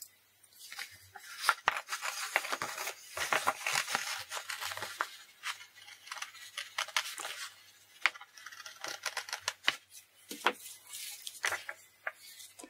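Scissors cutting a circle out of a sheet of drawing paper covered in clear adhesive tape: a long run of irregular snips with the stiff paper rustling between them.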